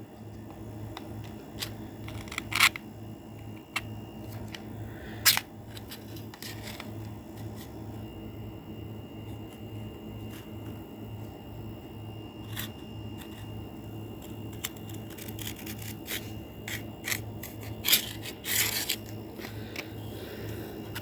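Machete blade drawn through a knife sharpener in a few short scraping strokes, about two and a half and five seconds in and again near the end, over a steady low hum.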